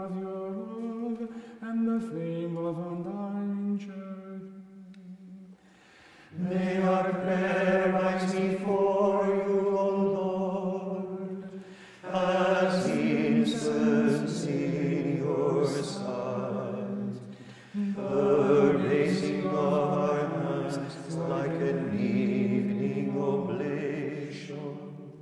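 Monks chanting plainchant: men's voices singing a slow, unaccompanied melody in phrases a few seconds long with short breaks between them. It is quieter at first, then louder and fuller from about six seconds in.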